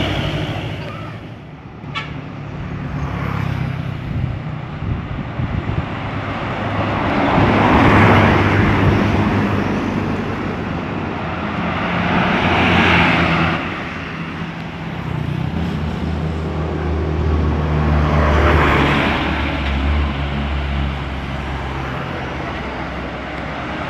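Road traffic passing close by, trucks among it: a steady low engine hum with three vehicles sweeping past one after another, each swelling up and fading away.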